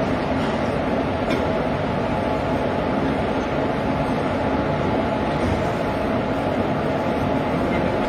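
A standing rail locomotive running close by: a steady mechanical hum and rumble, with a couple of faint clicks.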